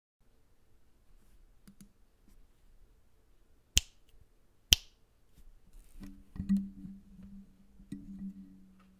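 Scattered key taps and clicks on a Magicforce 49 mechanical keyboard with lubed Cherry MX Silent Black switches, with two sharp, loud clicks about four and five seconds in. From about six seconds a low steady hum sits under further taps.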